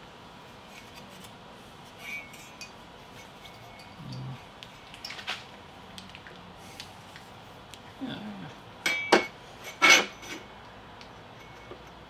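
Scattered light taps and metallic clinks as a cordless drill and its long steel drill bit are handled against the door, with two loud, sharp, ringing clinks about nine and ten seconds in. The drill motor is not running.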